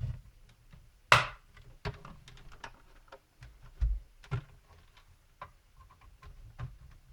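Plastic latches of a laptop's top case clicking and snapping loose as the case is pried open around its edge: a loud snap about a second in, then several smaller clicks and snaps.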